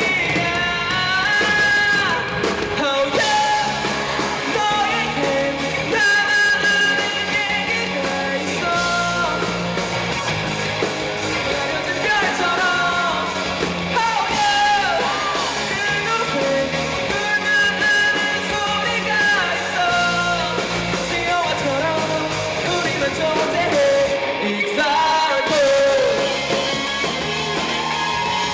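Rock band playing live, with a voice singing over the band's backing.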